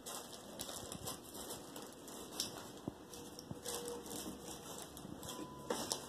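Faint handling noise: scattered light scratches, rustles and small clicks, irregular throughout.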